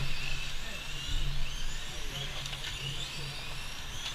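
Electric radio-controlled Formula 1 model cars racing: a high-pitched motor and gear whine that rises and falls repeatedly as the cars accelerate and brake, several overlapping. A low rumble swells at the start and again about a second in.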